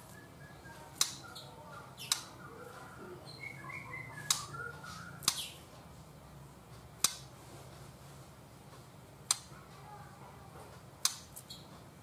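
A young white-rumped shama (murai batu) giving faint, broken warbling chirps, mostly in the first half. Seven sharp clicks come every one to two seconds throughout.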